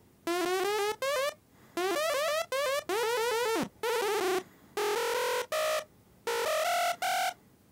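Sylenth1 software-synth buzz lead playing a short hardstyle melody in separate notes, a saw-shaped LFO sweeping its tone upward over and over within each note. About halfway through one note slides down in pitch, and the later notes sound thicker as the patch is tweaked.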